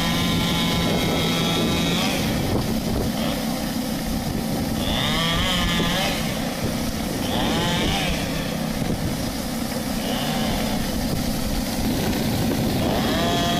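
Rotary surface cleaner of a high-pressure washer being pushed over a corrugated metal roof: a steady hiss and rush of water jets with a constant motor hum under it.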